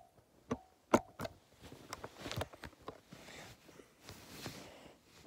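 Handling noise: a few sharp taps and knocks, the loudest right at the start and about a second in, then soft rustling as a hand and sleeve brush against the recording device.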